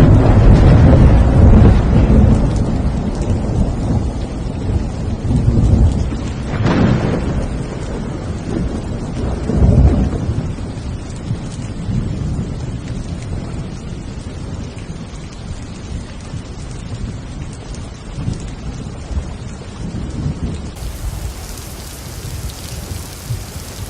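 Thunder rumbling over steady rain. The deep rumble is loudest at the start, swells again about seven and ten seconds in, and slowly dies away while the rain hiss carries on.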